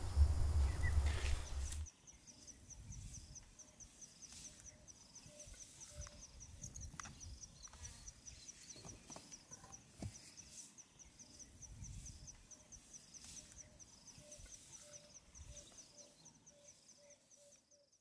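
Faint bush ambience: a high, rhythmic chirping of about four a second runs throughout, with a lower call repeating about once a second that quickens near the end. A low wind rumble on the microphone cuts off about two seconds in.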